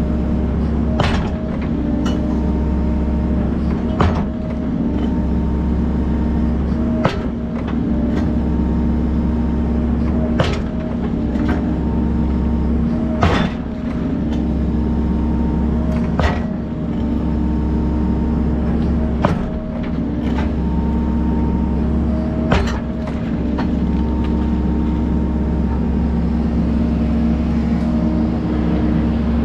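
Volvo excavator engine running steadily with a hydraulic whine coming and going, and a sharp metal clank about every three seconds as the large concrete block is dropped onto a steel I-beam pier to drive it into the lake bed.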